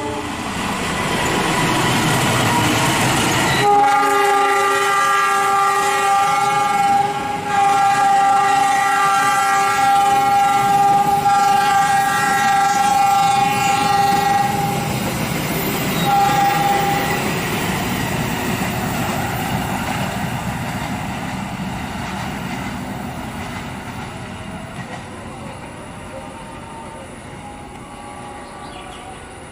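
A passenger train's locomotive horn sounds a long chord-like blast of about eleven seconds, breaking briefly about seven seconds in, then a short blast about sixteen seconds in. It is the long warning blown for an unguarded level crossing ahead. Under it, the train rumbles past and fades away near the end.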